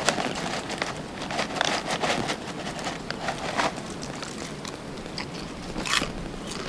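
Irregular light rustling and crackling, with a sharper click about six seconds in.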